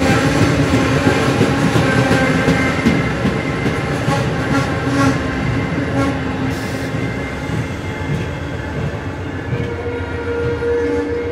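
Amtrak Texas Eagle's bilevel Superliner passenger cars rolling past, steel wheels rumbling and clicking on the rails as the last car goes by. A held horn tone comes in near the end.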